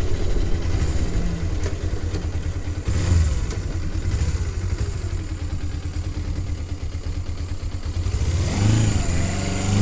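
Motorcycle engine running at road speed with wind rush, heard from inside the rider's helmet with the helmet vents open. Near the end the engine pitch rises and falls a few times.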